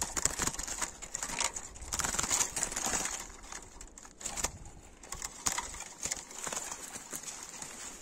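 European goldfinch fluttering in a wooden trap cage with wire bars: irregular clicks and rustles of wings and feet against the wires, quieter for a second or so near the middle.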